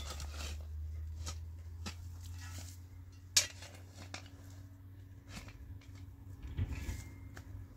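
A scattering of sharp clinks and knocks, as of dishes or cutlery being handled, over a steady low hum. The loudest knock comes about three and a half seconds in.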